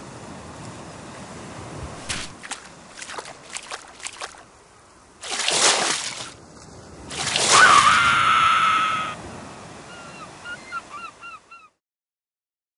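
Beach sound effects from an animated film's soundtrack: waves washing on the shore, a few short splashes, then two louder rushes of surf, the second with a high held tone over it. A quick run of short chirps follows, and the sound cuts off shortly before the end.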